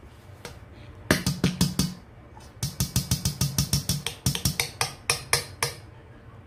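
Metal utensil clinking against a stainless steel mixing bowl while stirring cassava cake batter: fast, even strokes at about six a second, a short run about a second in and then a longer run of about three seconds after a brief pause.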